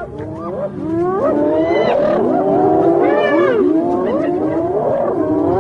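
A pack of spotted hyenas calling together over a kill: many overlapping calls sliding up and down in pitch, a continuous chorus of whoops and squeals.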